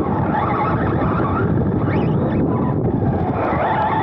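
Wind buffeting the onboard microphone and steady rumble of a Serpent SRX2 2wd electric RC buggy running fast over artificial turf, with the brushless motor's faint whine rising and falling with throttle.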